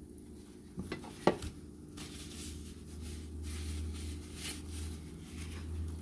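Metal kitchen tongs clicking sharply two or three times about a second in, then soft rustling from handling them, over a steady low hum.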